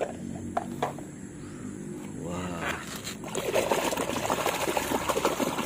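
Muddy water splashing and sloshing as a hand scrubs a plastic toy vehicle in a shallow puddle, in rapid irregular splashes that start a little past the middle. A few light plastic knocks come earlier, as the toy is handled.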